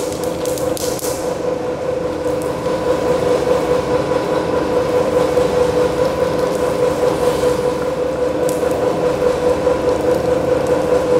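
Laboratory two-roll rubber mill running with a steady hum, its rolls working a sheet of black rubber compound during compounding. Brief hissing in the first second as powdered ingredients are scattered onto the rolls.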